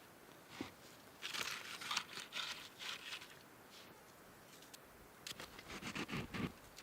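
Rustling and crunching of dry twigs and brush being handled, in two bunches of short, sharp crackles: one about a second in and another near the end.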